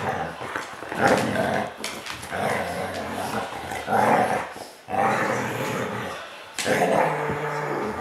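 Siberian husky and puppy play-fighting: long stretches of play-growling and grumbling, broken by a few short pauses.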